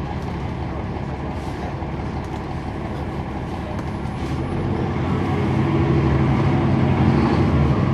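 The Cummins ISL9 inline-six diesel of a NABI 40-foot transit bus, heard from inside the cabin, running steadily, then growing louder about halfway through as it is put under load.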